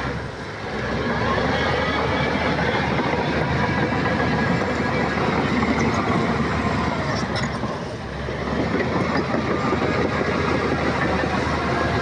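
Heavy earthmoving machinery running steadily under load, its noise easing briefly about half a second in and again around eight seconds in.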